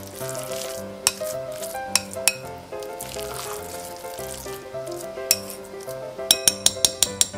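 Ground chicken filling being kneaded and beaten with a utensil in a glass bowl: wet stirring and slapping, with sharp knocks against the glass. There are a few knocks about a second apart, then a quick run of about eight near the end. Soft background music with held notes runs underneath.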